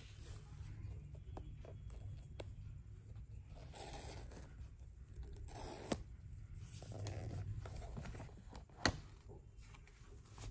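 Cardboard packaging being handled: the pull-tab tear strip of a paper box is torn open along its edge, with scraping and rustling of the box. Two sharp clicks come about six and nine seconds in, the second the loudest.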